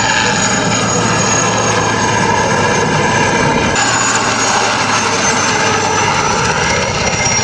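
Aircraft engine running steadily, with a high whine that slowly falls in pitch.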